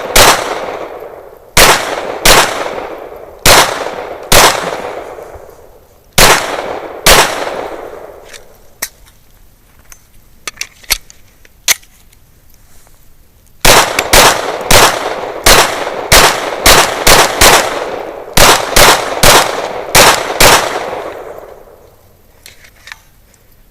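Glock 41 .45 ACP pistol shots at an outdoor range, each followed by a short echoing tail. About seven deliberate shots a second or so apart, a pause with a few light clicks, then a fast string of about fifteen shots.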